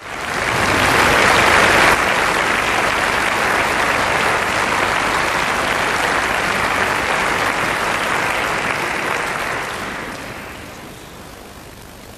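Concert hall audience applauding, dying away over the last couple of seconds.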